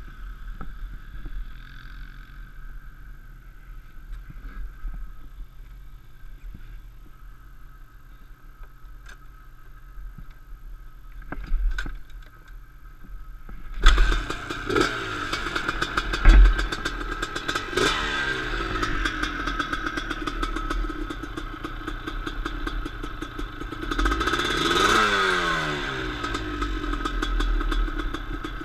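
Suzuki LT250R quad's 250cc two-stroke single-cylinder engine, idling quietly at first. About halfway through it gets much louder and revs up and down several times, with clattering knocks.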